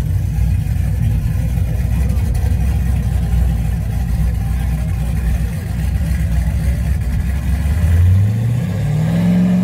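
A truck's engine running with a loud low rumble, then revving up with a rising pitch about eight seconds in.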